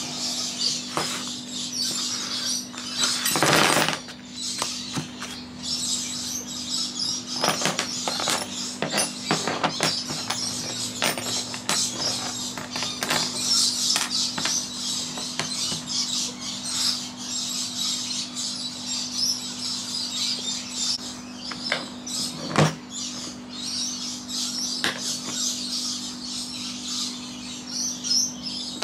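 Steady low hum of an air-conditioning unit under continual high chirping of birds. Scattered clicks and rustles come from hex keys and a charger being handled, with a longer rustle about three and a half seconds in.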